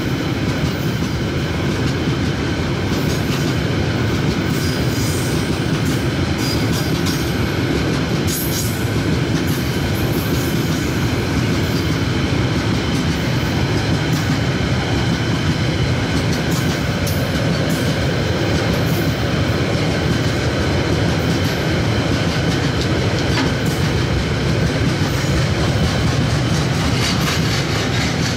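Mixed freight train's wagons rolling past, a steady heavy rumble of steel wheels on the rails with clicking over the rail joints and a few thin high wheel squeals.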